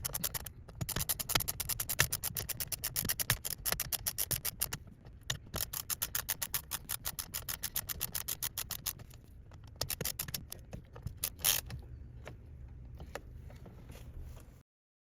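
Ratchet clicking in quick, even runs as the two T25 Torx bolts holding the replacement paddle shifter to the steering wheel are tightened, with short pauses between spells. It cuts off suddenly near the end.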